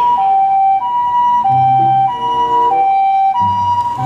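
Two-tone ambulance siren: a hi-lo wail switching between a high and a low tone about every two-thirds of a second.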